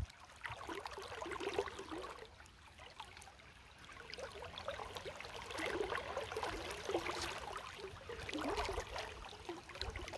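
Shallow river water trickling and gurgling, faint and uneven.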